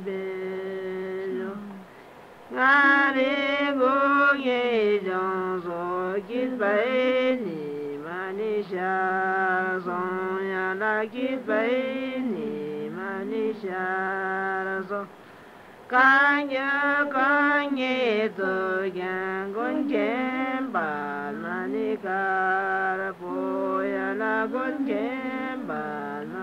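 A song sung in long phrases of held, bending notes, with short pauses about two seconds and fifteen seconds in.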